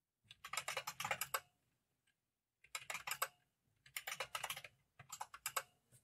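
Typing on a computer keyboard in four quick bursts of rapid key clicks, each press sounding as software-imitated IBM keyboard clicks.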